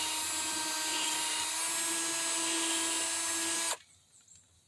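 Electric drill running steadily at speed, spinning a solid copper soldering-iron tip against 220-grit sandpaper with a steady hiss as the tip is ground down. The drill stops suddenly about three-quarters of the way through.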